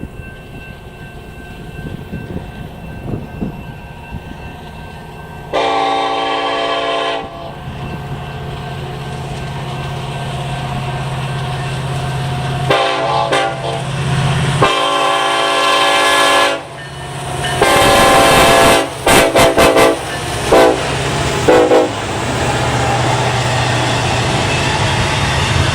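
Union Pacific locomotive's Nathan K5LLA five-chime air horn played as a horn show: one long blast, two more long blasts, then a quick string of short toots. Under it the diesel locomotive's engine rumble grows louder as the train approaches.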